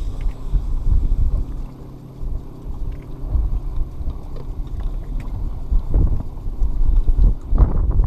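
Wind buffeting a microphone on an open fishing boat: a gusty low rumble that rises and falls, with a faint steady low hum under it in the first few seconds.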